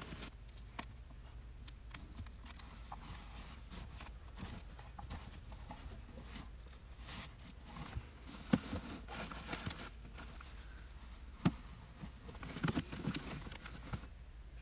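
Cloth drawstring pouches being handled and packed into a plastic storage crate: fabric rustling and small clicks, with two sharper knocks past the middle.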